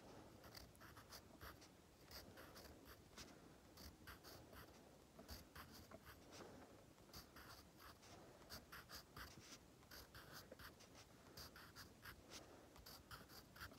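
Faint scratching of a pencil on sketchbook paper in many short, quick strokes as small windows are drawn.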